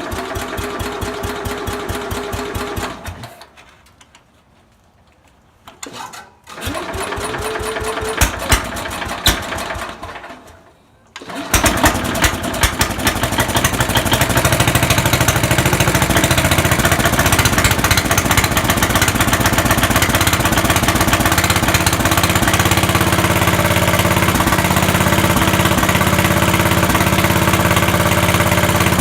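1968 Sears Super 12 garden tractor engine, cold-blooded and hard to start. It runs for a few seconds and stops, turns over again for a few seconds, then catches about eleven seconds in and runs steadily.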